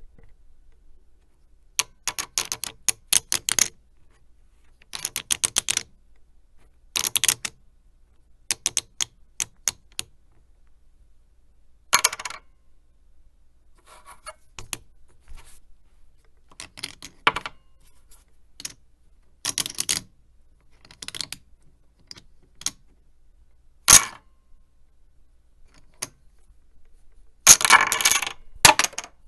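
Poker chips clacking together: rapid runs of sharp clicks as chips are shuffled, riffled and dropped onto a stack, in bursts of about a second with short pauses, and a dense flurry of clatter near the end.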